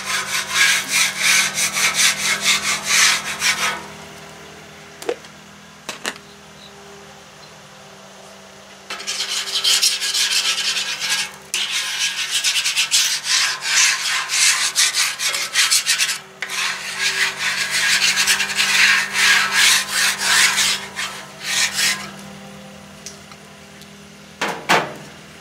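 Wooden spatula scraping bacon residue off the steel top of a Blackstone flat-top griddle in rapid back-and-forth strokes. The scraping stops about four seconds in and starts again some five seconds later. It then goes on in long runs with short breaks, and a single knock comes near the end.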